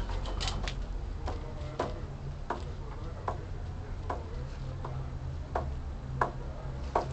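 Light, sharp clicks, roughly one every three-quarters of a second, over a low steady hum.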